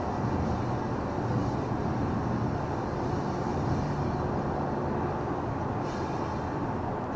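Steady road noise inside a car cruising on a highway: tyre and wind rush over a low, even engine hum.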